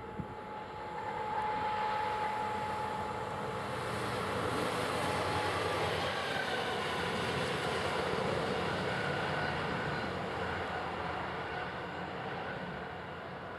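DB class 212 (V100) diesel locomotive running light and passing by: engine drone and wheel-on-rail noise build over the first couple of seconds, hold, then ease slightly near the end. A steady whine sounds through the first few seconds.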